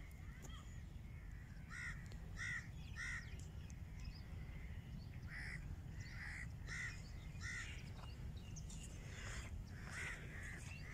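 Crows cawing: short harsh calls in runs of three or four, over a steady low rumble.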